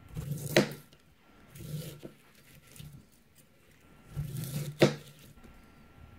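Dalstrong Shogun 9.5-inch gyuto chef's knife slicing the rind off a pineapple: three rasping cuts down through the tough skin. The first and last end in a sharp tap of the blade on the cutting board, about half a second in and near five seconds.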